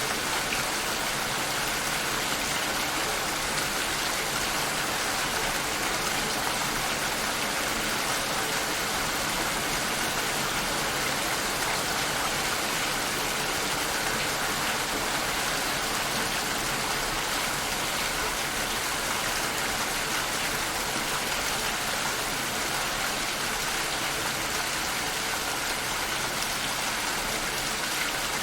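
Steady, even rainfall, a continuous hiss of rain falling without breaks or thunder.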